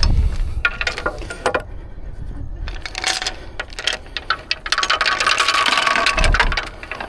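Heavy half-inch steel lifting chain clinking and rattling as it is handled, in irregular bursts that are densest about five to six and a half seconds in, with a few low thuds.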